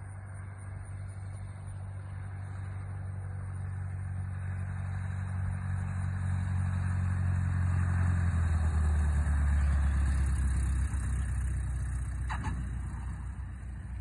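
Piston engine and propeller of a single-engine low-wing light aircraft at low landing power, growing louder as the plane comes in and passes close by, its pitch dropping as it goes past, then fading as it rolls out down the runway. A brief squeak comes near the end.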